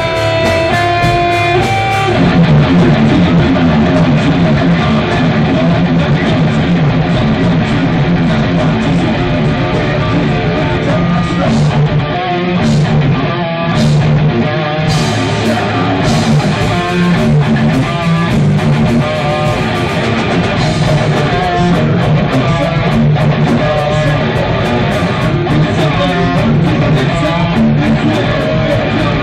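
Metal band playing live: a guitar line of held notes, then about two seconds in the full band comes in with distorted electric guitars, bass guitar and drums, heard from the audience in the hall.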